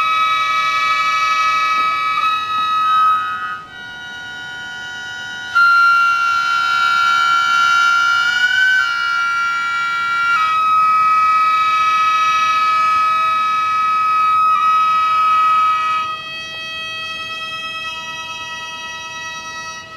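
Gagaku, Japanese ceremonial wind music: held chords that change every few seconds under a high, sustained melody line that slides between notes, growing quieter for the last few seconds.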